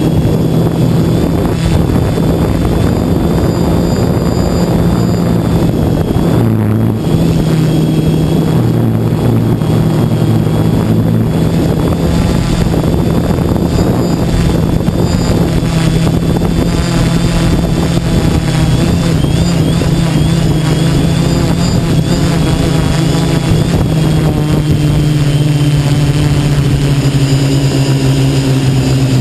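Brushless electric motors and propellers of a quadcopter drone, heard from on board: a loud, steady buzzing hum. Its pitch shifts briefly about seven seconds in and settles a little lower in the last few seconds as the throttle changes.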